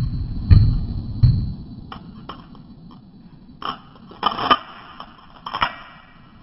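Two heavy thumps in the first second and a half, then a string of short metallic clicks and clacks from a semi-automatic pistol being handled (magazine and slide work) between about three and a half and six seconds in.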